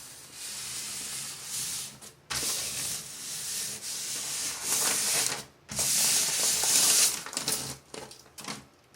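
Vinyl decal being rubbed down onto a wall by hand: a dry, scratchy rubbing in long strokes that break off about two seconds in and again around five and a half seconds, then shorter rubs near the end.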